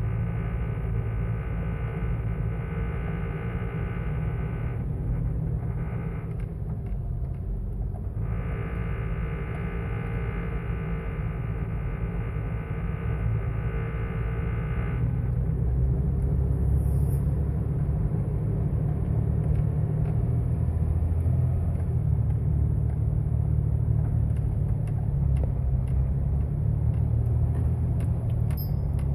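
Jeep Wrangler TJ 4.0 straight-six engine running at low RPM, a steady rumble with a buzz over it. The buzz drops out about five seconds in, returns about three seconds later, and stops about fifteen seconds in, leaving the lower rumble. The owner reports this buzzing vibration only at low RPM in Drive and Reverse, gone at higher RPM, with its cause unknown.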